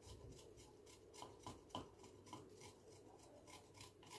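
Small hand grater scraping a lump of solid stone musk: short, faint rasping strokes, about two or three a second, at an uneven pace.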